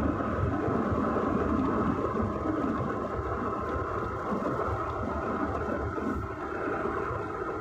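Road and engine noise inside a moving car's cabin: a steady rumble of tyres on asphalt and the engine running at cruising speed.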